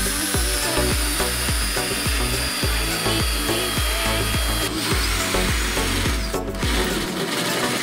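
Narrow belt sander (belt file) grinding along a metal seam of the car body, running with a steady high whine that stops about two-thirds of the way through; this is part of cutting away the damaged rear quarter panel. Background music with a steady bass beat plays throughout.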